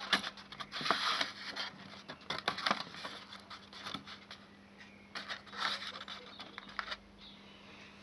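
Handling noise: hands and the plastic wiring-diagram cover of an intruder alarm panel rubbing and scraping, in short scratches that come thickest in the first three seconds and again around five to six seconds. A faint steady hum runs underneath.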